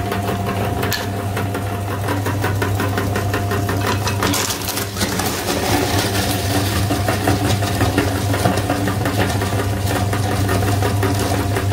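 Electric meat grinder's motor running with a steady hum while hard lollipop candy crunches and cracks in its auger, a dense rapid crackle over the drone.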